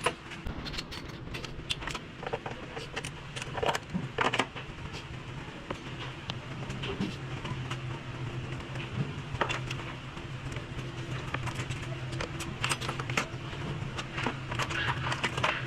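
Metal hand tools and engine parts clinking and tapping in irregular small knocks, over a steady low hum.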